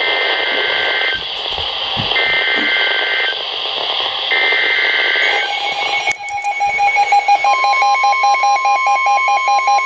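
NOAA Weather Radio alert over receiver hiss: three SAME header data bursts, each about a second long, a harsh two-pitch warble that signals an alert is coming. About six seconds in a rapid pulsing electronic beep starts, and a second and a half later the steady 1050 Hz weather radio warning alarm tone joins it.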